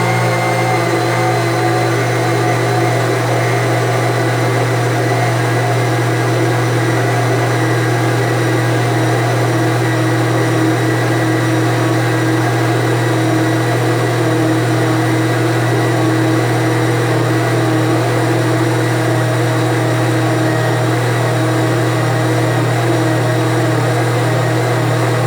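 Countertop blender motor running steadily, blending a batch of used cooking oil and liquid caustic soda into homemade soap.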